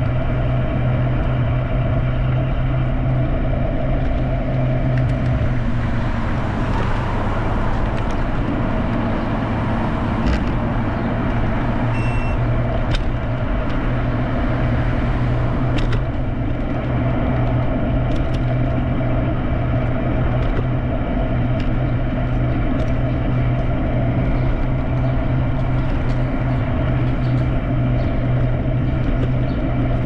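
Steady road noise of a bicycle ride along a street with traffic, a low steady hum underneath, a car going by about six to ten seconds in, and a few short clicks.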